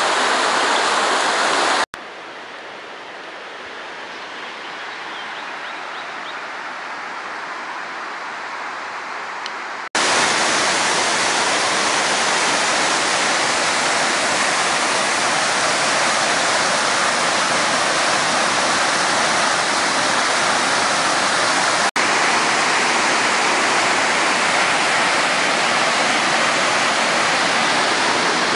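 Mountain waterfall rushing steadily, a dense even roar of falling water. About two seconds in it drops to a quieter rush for about eight seconds, then cuts back to the loud roar.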